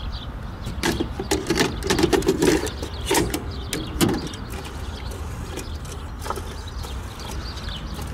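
Hard plastic clicks and clunks of a Toyota 12-disc CD magazine being slid into the trunk-mounted CD changer and the changer's flap pushed shut. A quick run of knocks over about three seconds, then it settles.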